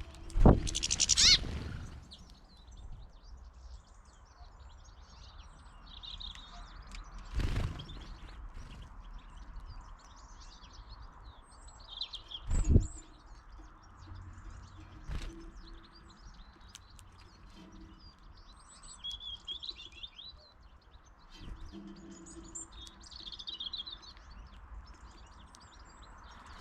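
Small birds chirping and twittering on and off, with a few loud knocks or thumps, the loudest about half a second in and two more at about seven and twelve seconds.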